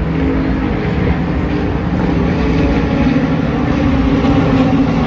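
Engine noise, loud and steady: a low rumble with a few engine tones that hold a near-constant pitch.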